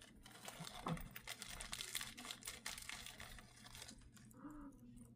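Faint, irregular crinkling and rustling of packaging being handled and opened, dying down near the end.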